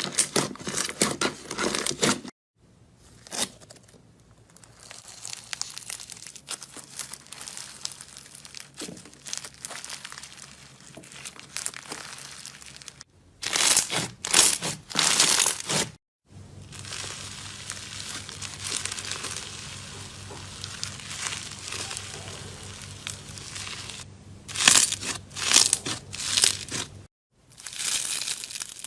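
Slime being squeezed, stretched and pressed by hand, making crackling, crinkling sounds, in several short clips with abrupt cuts between them. The loudest crackling comes in bursts in the middle and near the end.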